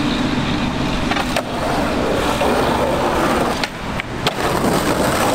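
Skateboard wheels rolling on rough concrete, with a few sharp clacks and knocks of the board hitting the ground.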